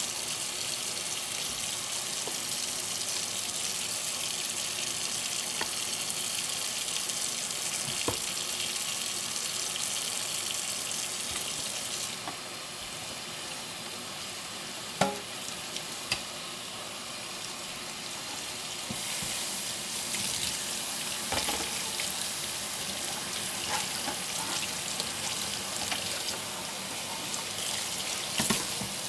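Kitchen tap water running steadily into a sink during hand dishwashing. The flow eases for several seconds midway, and a few sharp clinks of dishes sound now and then, the loudest about halfway through.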